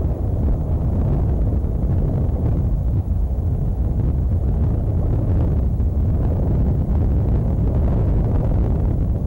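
Wind rumbling on an outdoor nest-camera microphone: a steady, loud, low rushing noise with no distinct events.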